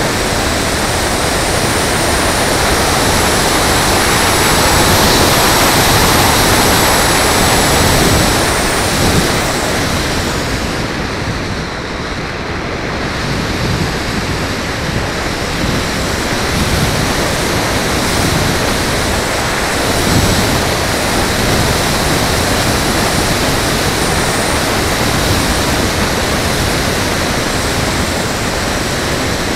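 Steady rush of airflow over the onboard camera microphone of a foam FPV RC plane in flight. A faint high whine that drifts in pitch comes through in the first several seconds, and the rush eases briefly about twelve seconds in.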